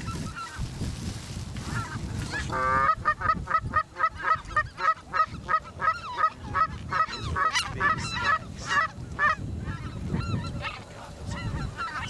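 Geese calling in a chorus of honks and high yelps: one long drawn-out honk about three seconds in, then quick yelping notes about three a second until near the end, where they thin out. Wind rumbles on the microphone throughout.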